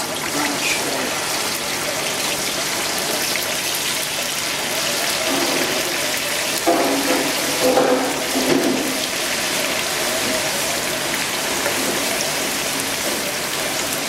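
Half-boiled potato chips deep frying in hot oil, a steady, even sizzle.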